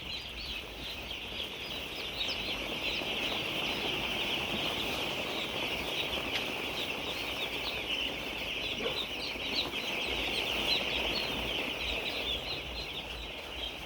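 A poultry flock calling together: many birds at once, making a dense, steady chorus of short high-pitched calls.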